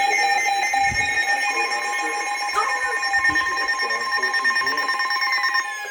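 NOAA Weather Radio receivers sounding their alert alarms as a new alert comes in: several steady electronic tones at once with a rapid beeping, another steady tone joining about a second and a half in, and a falling siren-like sweep starting near the end.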